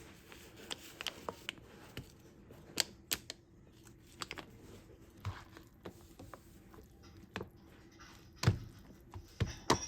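Scattered light clicks and knocks of small objects being handled, with a louder knock about eight and a half seconds in and another just before the end.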